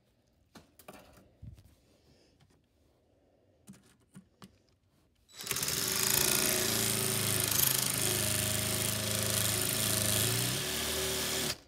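A hand-held electric power tool starts about five seconds in, runs steadily with a loud grinding whine for about six seconds, and then stops abruptly. It is being used to break apart a computer mouse. Before it, there are only a few faint clicks of handling.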